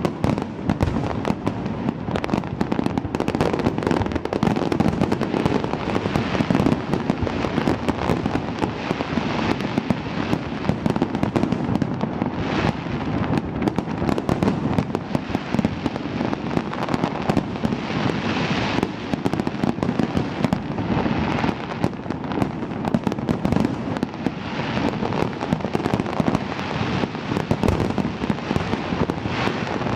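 Fireworks display: a loud, dense barrage of bangs following one another without a break.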